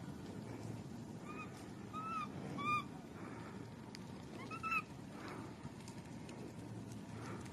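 Infant macaque giving short, high whistle-like coo calls, each rising and falling in pitch: three in quick succession in the first three seconds and one more a little before the five-second mark.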